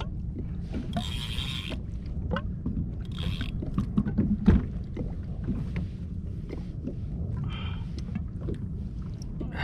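Scattered knocks and scrapes on a plastic fishing kayak as a freshly landed yellowfin tuna struggles aboard, with one heavier thump about four and a half seconds in. Under them runs a steady wind rumble on the microphone.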